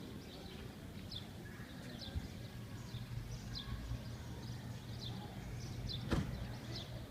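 A small bird chirping, short high falling notes repeated roughly every three-quarters of a second, over a steady low hum. A single sharp knock about six seconds in.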